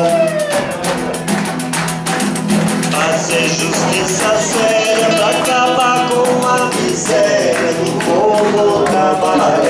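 Live Brazilian song: acoustic guitar strumming, a pandeiro tambourine's jingles keeping a quick, steady beat, and singing.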